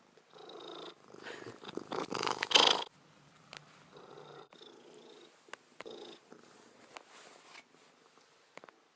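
House cat purring close to the microphone. Louder noisy brushing bursts come in the first three seconds, followed by a quieter rumble with scattered light clicks.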